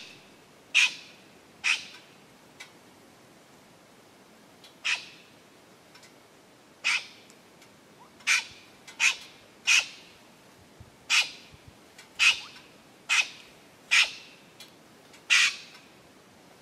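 Black-throated magpie-jay giving short, harsh, squawking calls, about a dozen spaced irregularly one to two seconds apart.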